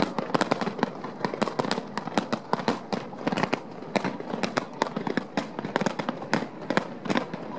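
Fireworks going off overhead in a dense, continuous barrage: sharp bangs and crackles, several a second, with no break.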